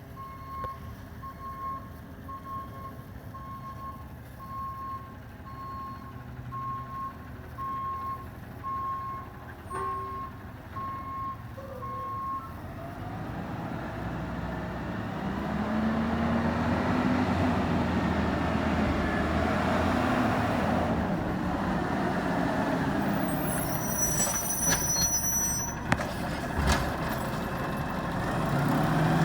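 Garbage truck's reversing beeper sounding about once a second for the first dozen seconds, over the truck's engine. The diesel engine then grows louder and revs up and back down, with a short hiss near the end.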